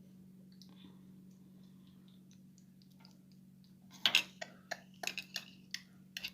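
A spoon clinking lightly against a small dish or jar, a run of sharp separate clicks starting about four seconds in, the first the loudest, over a faint steady low hum.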